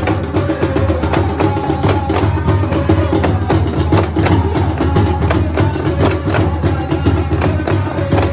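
Hand drums of a Sufi Rifa'i ratib beaten in a fast, dense, unbroken rhythm, with held chanted tones over them.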